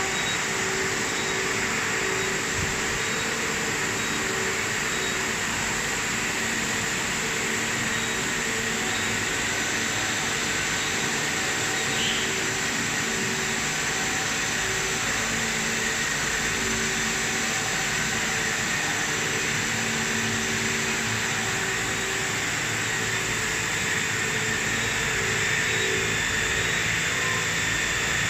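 Vertical machining center running under power: a steady hum and hiss with a few faint steady whines and no change in level.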